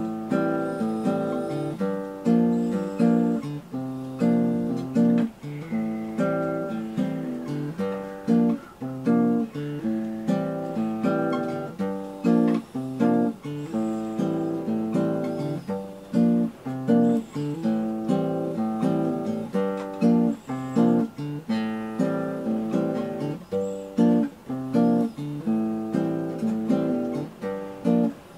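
Background music: an acoustic guitar playing a run of plucked and strummed notes, each struck sharply and fading away.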